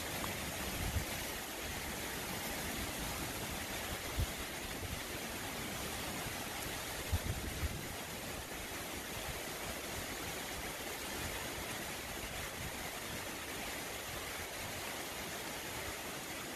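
Tropical-storm wind and heavy rain making a steady hiss, with a few low thumps of gusts buffeting the microphone: about a second in, at about four seconds, and twice at about seven seconds.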